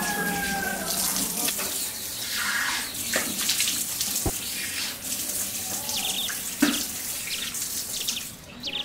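Water running from a tap into a ceramic washbasin and splashing as it is scooped up to wash the face, with a couple of light knocks in between; the flow stops near the end as the tap is turned off.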